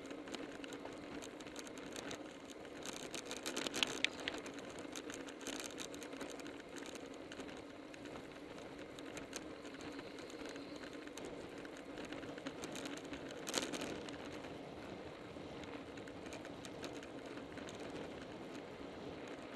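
Road bicycle ridden at speed in a group, heard from a camera mounted on the bike: a steady hum of tyres and air, with bursts of rapid ticking from about three to seven seconds in and again around thirteen seconds.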